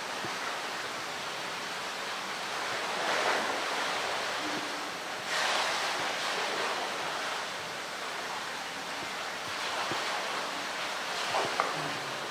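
A polar bear splashing into and swimming through its pool, with two louder surges of churning water a few seconds in, over a steady rush of running water. A short sharp click comes near the end.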